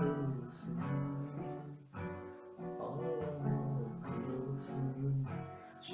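Acoustic guitar being played, plucked and strummed chords changing about every second.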